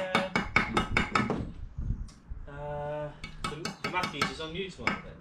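Steel bricklaying trowel scraping and tapping against bricks and mortar: a quick run of clinks and scrapes, with a short pause about halfway through.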